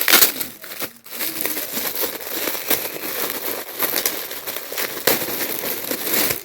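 Gift wrapping being crinkled and torn open, a steady run of crackling rustles as the package is unwrapped.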